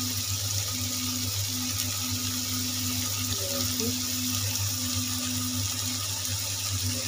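Onions and tomatoes sizzling steadily in hot mustard oil in a kadai on a gas stove, a continuous frying hiss with a low hum beneath.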